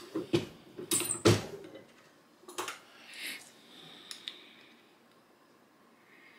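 A few sharp clicks and knocks from a brass 45-70 case being worked at the reloading press to flare its mouth, the loudest about a second in, then quiet for the last couple of seconds.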